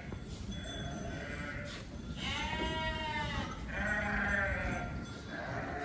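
Sheep bleating, several calls in turn. The loudest comes about two seconds in and rises and falls in pitch over about a second and a half, and another call follows right after it.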